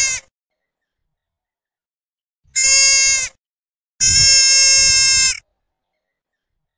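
A farm animal bleating in loud, steady-pitched bleats: the tail of one at the start, then two more, the last one longer, with silence between them.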